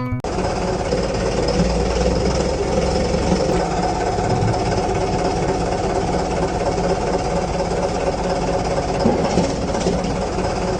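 A machine's engine running steadily, with a rough, even rattle and no change in speed.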